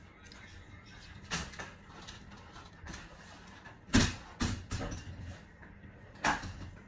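A few short kitchen knocks and clatters of a spatula and dishes as frosting is scooped from a glass measuring cup and spread on a cake: a light one about a second in, the loudest about four seconds in followed quickly by two more, and another near the end.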